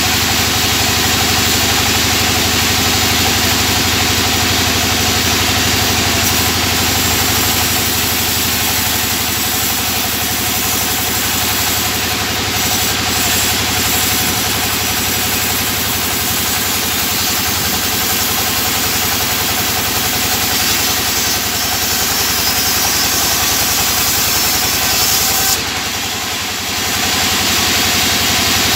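Band sawmill running steadily under power while a board is resawn into thin planks, the machine's drive and blade making a loud, continuous mechanical din. The sound dips briefly near the end, then picks up again.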